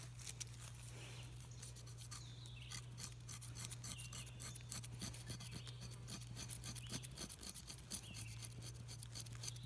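Knife blade scraping along a split stick of wood, a fast run of fine, faint scratching strokes that shave off fluffy tinder.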